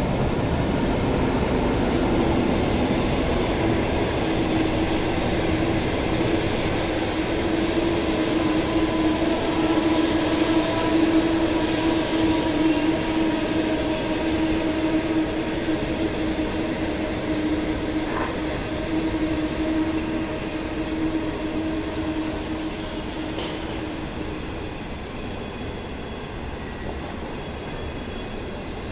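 A China Railway HXD3D electric locomotive and its passenger coaches rolling past, wheels running on the rails with a steady hum held through most of the pass. It is loudest about halfway through and fades toward the end.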